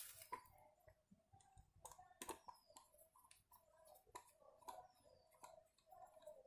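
Faint, irregular clicks and taps of small plastic and metal speedometer parts being handled and fitted by hand.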